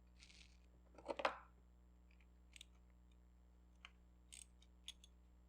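Short clatter about a second in, then a few scattered light clicks of hand tools and parts being handled during engine-bay work; otherwise near silence.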